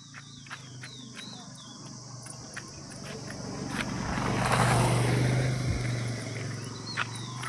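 A motor vehicle passing: its engine hum and road noise swell to a peak about four to five seconds in and then fade. Underneath, a steady high insect buzz runs with short, repeated chirps.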